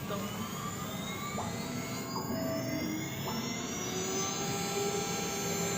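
Axiom AR8 CNC router starting a job: the spindle spins up with a whine that rises steadily in pitch, while the stepper motors' steady tones start and stop as the axes move.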